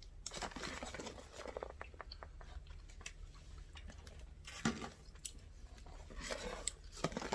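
A person chewing and eating a snack close to the microphone, with scattered small clicks and crackles.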